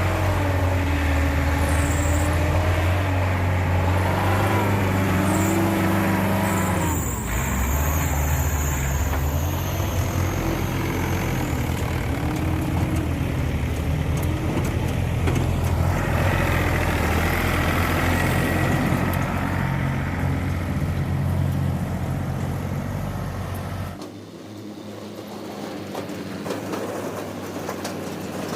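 Bull backhoe loader's diesel engine running under work, a steady low drone with a whine that wavers up and down in pitch. It drops suddenly to a quieter engine sound near the end.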